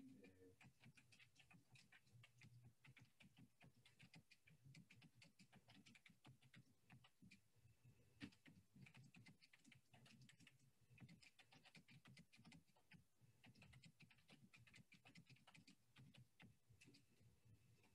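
Faint typing on a computer keyboard: many irregular clicks a second over a low, steady hum.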